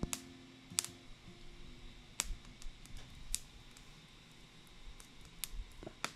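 The last notes of acoustic guitar music die away in the first second, then a quiet background with a scattered sharp click every second or so.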